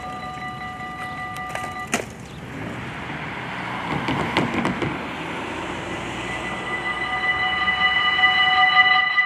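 Level crossing warning bell ringing, cut off sharply about two seconds in; a car then drives over the crossing, and the bell starts ringing again about seven seconds in as the red lights begin to flash, warning of an approaching train.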